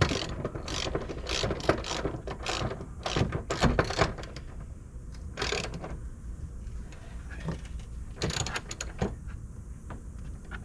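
Hand ratchet wrench clicking in short runs as bolts are driven, with some metal clinks and knocks. The clicking is dense for the first few seconds, then comes in sparser bursts.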